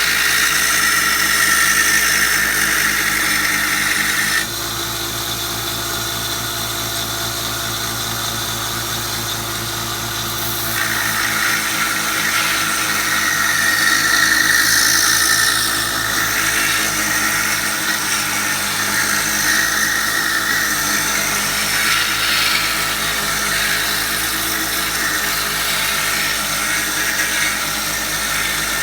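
Belt sander running while a steel draw knife blade is ground against the abrasive belt, a steady motor hum under a high grinding squeal. The squeal drops away about four seconds in, leaving the motor running, and comes back at about eleven seconds.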